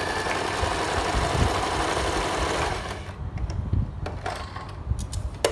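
Usha Janome Prima Stitch electric sewing machine running steadily as it stitches. It stops about three seconds in, followed by a few light clicks. The machine is noisier than it should be, which the owner puts down to its being overdue for a service.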